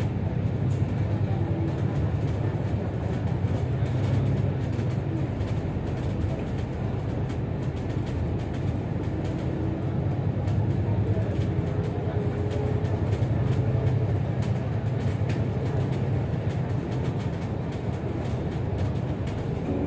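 City bus driving, heard from inside the cabin: a steady low rumble of engine and road noise that swells and eases a little as it goes.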